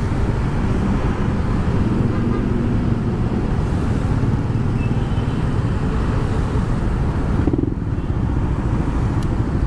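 Yamaha NMAX scooter's single-cylinder engine running while riding through traffic, under a steady low wind rumble on the microphone.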